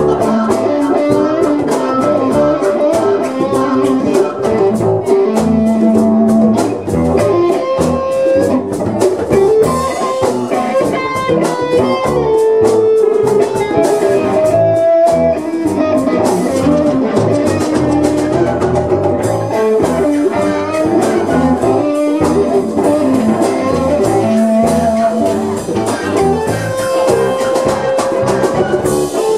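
Live band playing: electric guitar carrying held, gliding notes over bass guitar and a drum kit keeping a steady beat.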